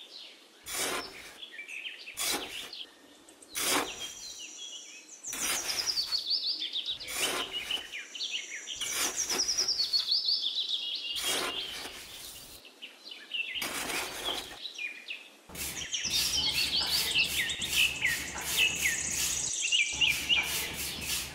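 Small hand trowel scraping and scooping damp sand in irregular strokes, over birds chirping continually.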